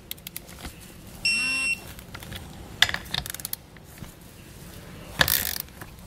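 Torque wrench tightening a bolt to its set torque: a few ratchet clicks, then a steady half-second electronic beep about a second in signalling that the torque is reached. A sharp click follows, and a short rush of noise comes near the end.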